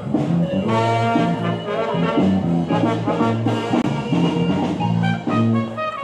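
A brass band playing, with trumpets and trombones carrying the tune over a repeating bass line.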